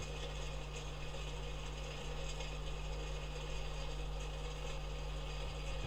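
Steady mechanical hum with a constant low drone.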